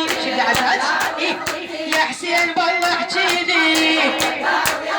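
Rhythmic chest-beating (latm) by mourners, sharp strikes about two a second, under a sung Shia mourning lament held on long notes.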